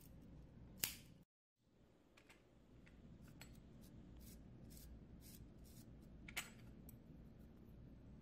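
Metal clicks from a stainless steel IMCO wick lighter being handled. There is one sharp snap about a second in, then a run of small metallic clicks and slides as the flint-holder mechanism is worked, and another sharp click a little after six seconds.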